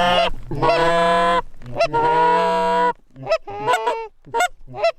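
Geese honking: two long drawn-out honks, then a quick run of short clucking honks.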